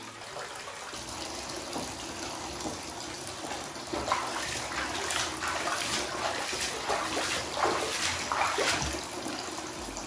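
Bathtub filling from the tap, the water pouring in and growing louder. From about four seconds in it is joined by irregular splashing as hands rub a pine branch in the water.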